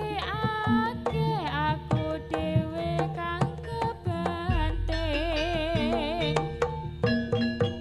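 Live Javanese jaranan ensemble playing: kendang barrel drums beat under a wavering melody with wide vibrato. A deep bass tone joins about halfway through.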